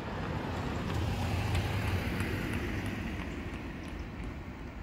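A vehicle passing unseen: a rumble with hiss that swells about a second and a half in, then fades away.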